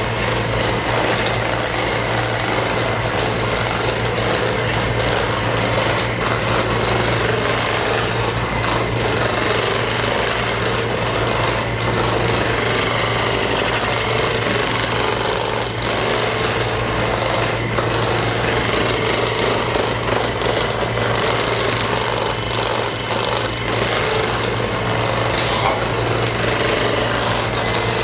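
Loud, steady mechanical buzz from a small motorized tool running without a break, with a low hum underneath.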